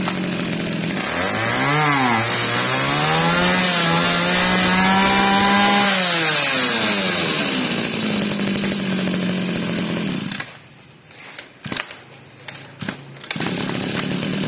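Kyoritsu Echo 209 brush cutter's 23 cc two-stroke engine idling. It gets a quick blip of throttle about two seconds in, then is revved up and held for a few seconds before it drops back to idle. About ten seconds in the engine sound stops; after a few clicks it is idling again near the end.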